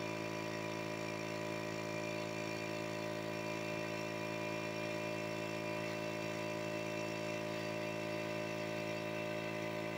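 A motor or small engine running steadily at an even pitch, with no change in speed.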